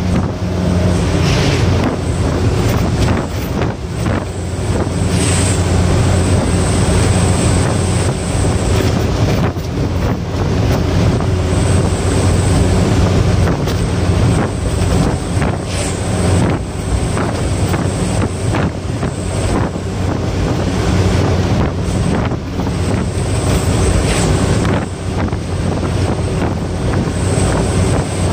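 Truck engine running steadily at speed, heard from inside the cab, as a low drone under road and wind noise, with scattered knocks and rattles.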